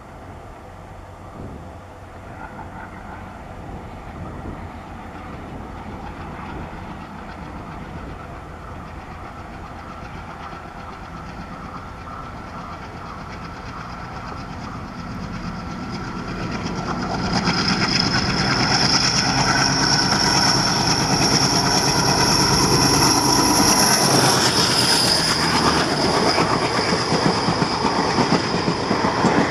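ALCO diesel locomotive hauling a passenger train under power, growing steadily louder as it approaches, with a high steady whine over the engine. About two-thirds of the way through the locomotive passes and the whine drops in pitch, and the coaches roll past close by.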